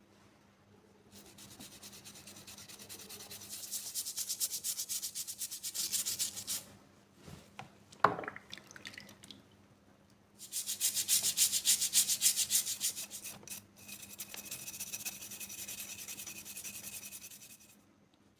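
Rapid back-and-forth rubbing strokes, abrasive scrubbing or sanding of rust off a metal spray-gun part. It comes in two long spells, with a sharp click between them about eight seconds in.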